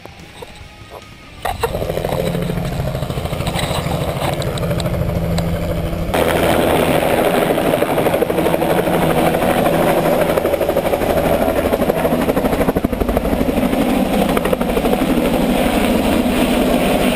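An engine running steadily and loudly. It starts about a second and a half in and gets louder about six seconds in.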